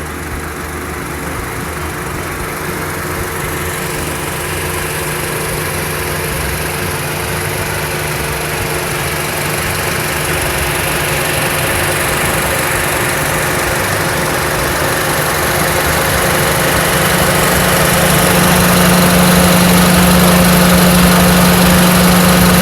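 Honda Step WGN (RG1) 2.0-litre four-cylinder engine running steadily, with a hum that grows gradually louder and slightly higher in pitch.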